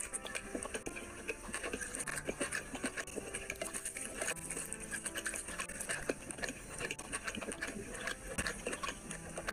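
Eating sounds: rice and curry gravy squelching as a bare hand kneads and scoops it on the plate, mixed with chewing and lip smacks, as a close, continuous run of small wet clicks.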